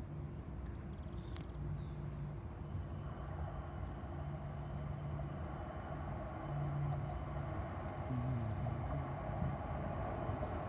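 A CAF Urbos light-rail tram approaching along the line, its running rumble growing louder over the last few seconds. Birds chirp faintly.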